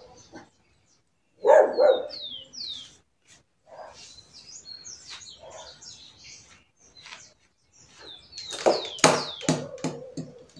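Birds chirping in short high gliding notes, with a dog barking about a second and a half in and several more times near the end.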